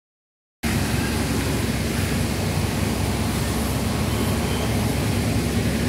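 About half a second of silence, then a steady outdoor rumble and hiss that runs on without change.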